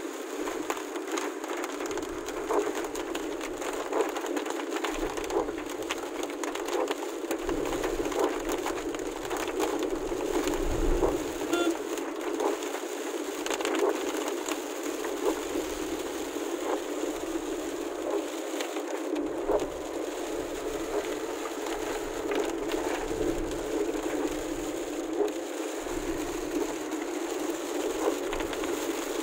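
Heavy rain hitting a moving car's windshield and roof, heard from inside the cabin: many separate drop ticks over the car's steady running noise.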